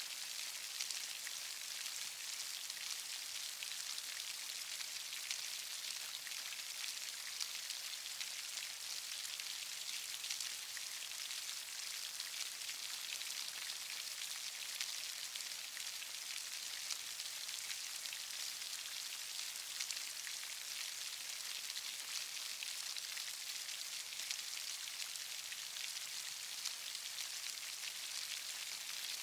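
Steady rain falling, a dense hiss of many small drops with no let-up.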